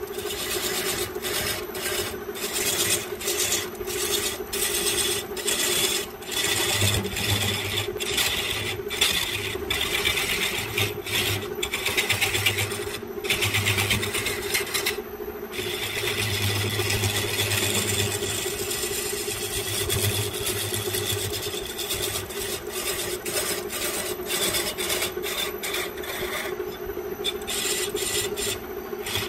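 Electric wood lathe running with a steady motor hum while a hand-held tool scrapes the spinning bamboo workpiece, a continuous rasping hiss with brief breaks.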